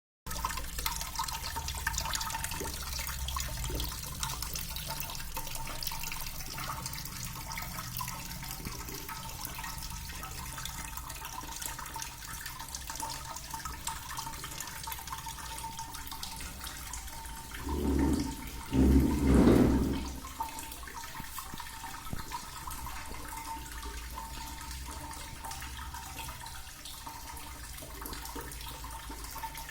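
Homemade water fountain running, water splashing and trickling steadily, with a faint steady tone underneath. Two louder, lower bursts come about two-thirds of the way through.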